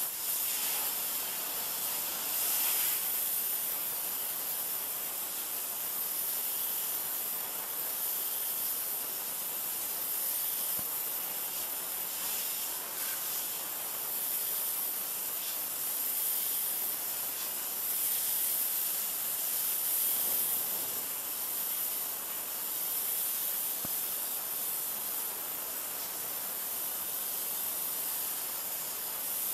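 Water jet from a 3000 psi pressure washer spraying a plastic lawn chair, heard as a steady high hiss that swells and eases as the jet moves; the washer's engine is barely heard.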